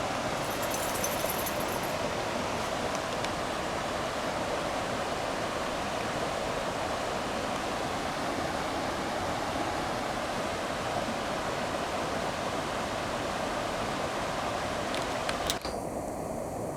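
A rain-swollen creek rushing steadily down a slight slope, cascading like a small waterfall. Near the end the sound changes abruptly, with a few sharp clicks.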